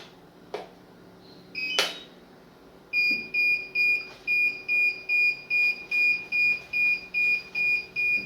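DJI Phantom 4 beeping: a couple of clicks and a short run of start-up tones, then a high beep repeating steadily about twice a second without stopping. It is a warning beep that signals a fault.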